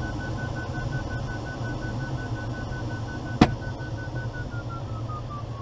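Glider variometer beeping rapidly at a steady high pitch over the steady rush of airflow in the cockpit. From about four seconds in, the beeps slide lower, the vario signalling that the climb is weakening. A single sharp click sounds about halfway through.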